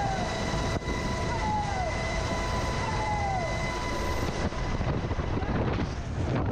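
UH-60 Black Hawk helicopter's steady turbine whine and rotor noise in the open cabin door. About four and a half seconds in, the whine falls away as the paratrooper leaves the aircraft, and gusty wind rushes over the microphone.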